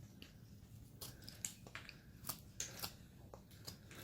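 Freshly honed carving knife slicing small chips from a basswood carving: a quick series of short, faint, crisp cuts.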